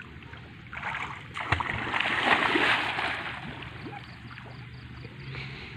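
Water splashing and sloshing in shallow pond water, swelling about a second in, loudest around the middle, then fading.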